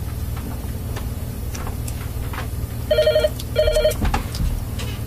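A telephone rings twice in quick succession about three seconds in, two short warbling rings, over a steady low hum and a few light clicks.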